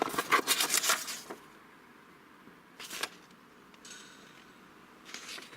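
Rustling and clicking of cardboard and paper packaging being handled. It is busiest in the first second or so, with a single sharp click about three seconds in and faint rustling near the end.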